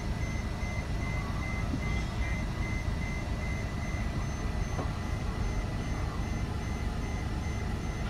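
Steady low rumble of airport apron machinery, heard through terminal glass, with a high-pitched warning beeper repeating evenly throughout, of the kind sounded by a reversing ground-service vehicle.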